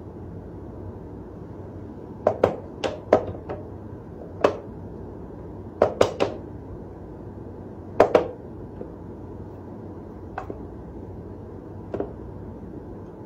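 Sharp wooden clacks and knocks from a wooden whack-a-mole cat toy as a cat paws at its levers and the pop-up mouse: a quick run of clacks about two seconds in, a pair around six and eight seconds, then single knocks near the end.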